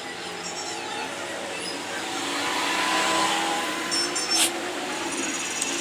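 Street traffic: a vehicle passing, its noise swelling to a peak about three seconds in and then fading, with a brief high-pitched sound about four seconds in.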